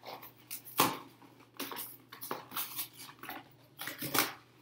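Scissors cutting through the thin cardboard of a cereal box: a string of crisp snips and crackles of the card, loudest about a second in and again near the end.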